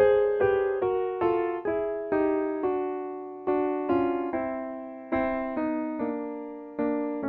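Solo piano accompaniment: a slow melody of single struck notes, about two a second, each fading after it is played, the line stepping gradually down in pitch.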